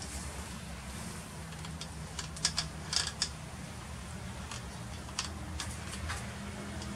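Light handling clicks and taps as stiff nylon trimmer line is worked through the head of an angle grinder that is switched off, with a cluster of sharp clicks about two and a half to three and a half seconds in and a few more later. A steady low hum runs underneath.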